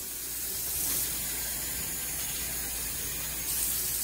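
Water running steadily as a little water is added to thin a chile-and-mole sauce that has grown too thick; the flow gets a little louder about a second in and again near the end.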